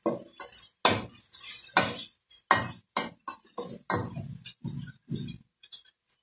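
Wooden spoon scraping and knocking against a stainless steel pot while stirring a frying sofrito of onion, garlic and spices: about ten strokes, roughly one a second, growing fainter near the end.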